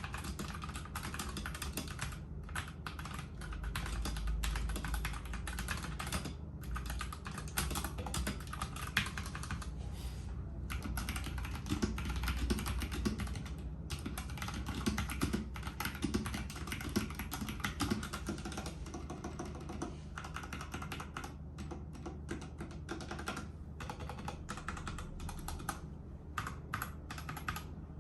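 Fast typing on a Royal Kludge RK61 mechanical keyboard fitted with Sushi and Koyu keycaps, the key clacks running together, with short pauses now and then and sparser strokes near the end.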